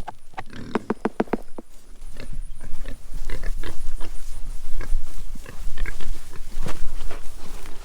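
Pigs at their feed: a quick run of short grunts in the first second or so, then scattered smacking and chomping as they eat kitchen scraps, over a low rumble.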